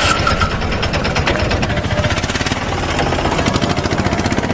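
A small engine running with a rapid, even beat.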